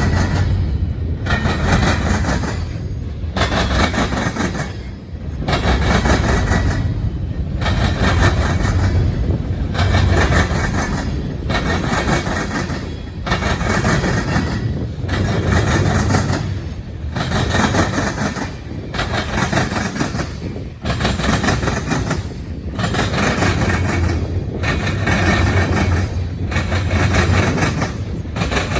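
Freight train rolling past with a loud rail clatter that swells and dips in a steady rhythm about every two seconds.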